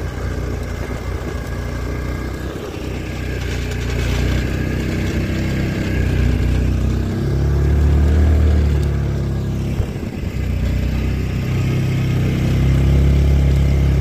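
Side-by-side UTV engine running as it drives through snow towing a snowmobile. The engine note swells louder a couple of times and dips briefly about ten seconds in.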